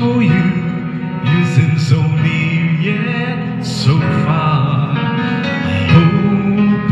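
A man singing a song into a handheld microphone over backing music, holding long wavering notes.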